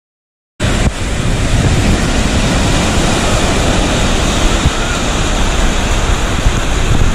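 Surf breaking on a beach under heavy wind buffeting on the microphone: a dense, loud rush of noise with a rumbling, fluttering low end. It starts abruptly about half a second in.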